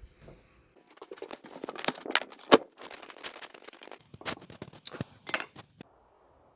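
Irregular run of clicks, scrapes and rustles of objects being handled, stopping about six seconds in.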